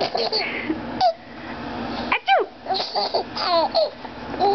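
Baby laughing in a run of short giggles and high squeals, each quick burst sliding in pitch.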